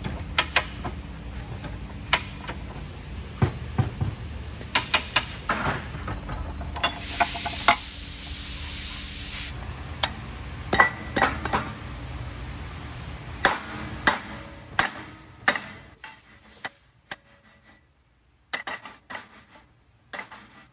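Small metal parts and tools clicking and clinking on a workbench while a pinion shim stack is put together, many separate taps and knocks. A hiss runs for about two and a half seconds around seven seconds in, and a low background hum drops away after about fifteen seconds.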